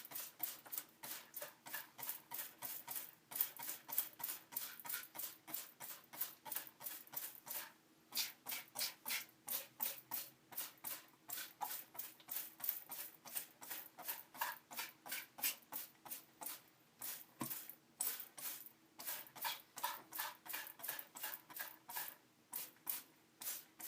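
Spray bottle of liquid cleaner being squirted repeatedly in quick succession, about three to four short sprays a second, with a few brief pauses.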